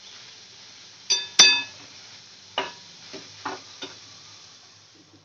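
Flat steel spatula stirring cooked onions and tomatoes in a metal kadai, clinking against the pan. Two sharp, ringing clinks come about a second in, then four lighter taps follow over the next few seconds.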